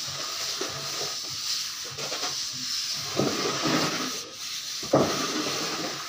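Plastering trowel scraping across wet cement plaster on a ceiling, a rasping hiss that swells with each back-and-forth stroke, with a sharp knock about five seconds in.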